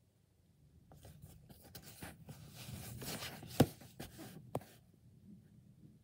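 A plastic DVD case being handled and turned over in the hand: a few seconds of scraping and rustling, with a sharp click about three and a half seconds in and a smaller one about a second later.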